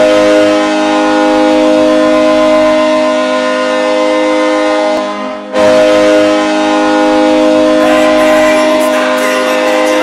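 Airchime KMJ-234 train horn sounding a steady multi-note chord as a hockey goal horn, in two long blasts with a short break about five seconds in.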